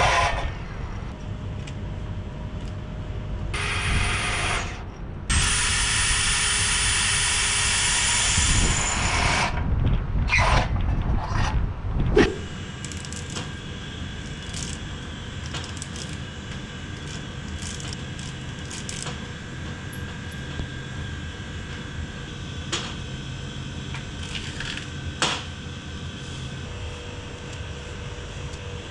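A cordless power tool runs in bursts against metal trunking, the longest steady run lasting about four seconds. About twelve seconds in it gives way to a much quieter stretch of armoured cable being handled, with light clicks and a couple of sharper knocks.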